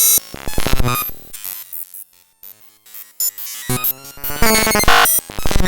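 A jumble of short, chopped electronic jingles and sound effects following one another in quick succession, each cut off abruptly; loud bursts open the stretch and return about four seconds in, with a quieter patch in the middle.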